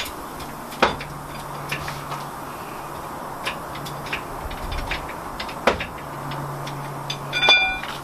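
Air compressor running with a steady low hum while a tyre is pumped up, broken by several sharp knocks and a short squeak near the end.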